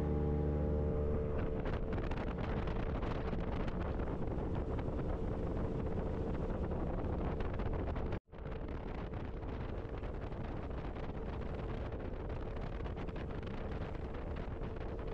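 Jet boat running at speed: steady engine and jet-drive noise with a constant whine, rushing water and wind buffeting the microphone. A held steady tone fades out about a second in, and the sound drops out briefly about eight seconds in.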